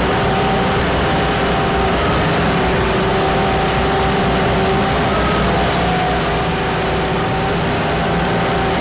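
Heavy construction machinery engines running steadily during a concrete pour: a constant, unchanging engine drone with a low rumble.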